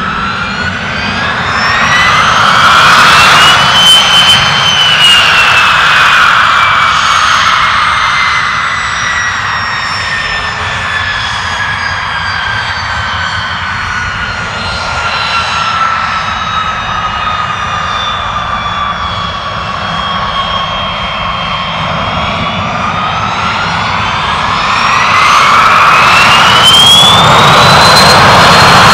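Pilatus PC-24's twin Williams FJ44-4A turbofans running on the runway. The whine rises in pitch over the first few seconds, then sinks slowly back down. Near the end it climbs steeply again and holds high and loud as the engines spool up to takeoff power just before the roll.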